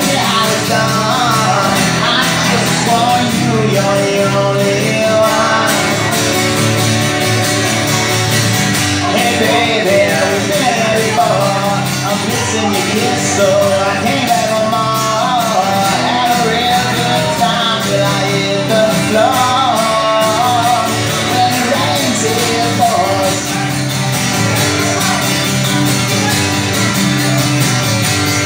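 Live acoustic duo music: two acoustic guitars strumming and picking, with a voice singing over them.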